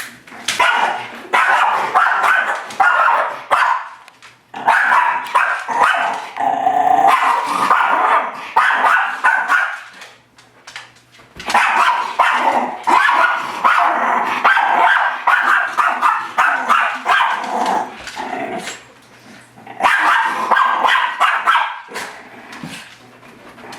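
Miniature schnauzer barking and growling at its own reflection in a mirror. The rapid barks come in long runs broken by a few short pauses.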